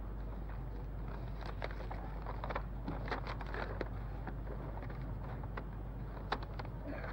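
Sheets of paper rustling as they are picked up, unfolded and sorted on a desk, in short scattered rustles that are busiest a couple of seconds in. A steady low hum runs underneath.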